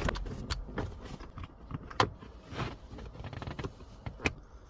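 Plastic console trim around a car's shifter being pried up with a plastic trim tool: scattered clicks and snaps of plastic, the sharpest about two seconds in and again near the end.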